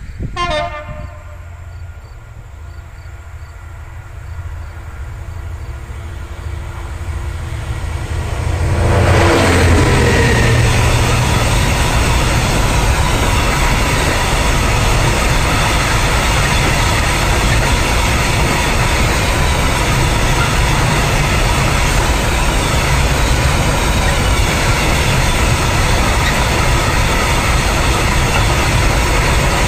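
A diesel freight locomotive approaches, growing louder for about nine seconds, then passes with a falling pitch. It is followed by a long string of open coal wagons rolling by with a steady, dense wheel-on-rail rumble. A short horn blast sounds near the start.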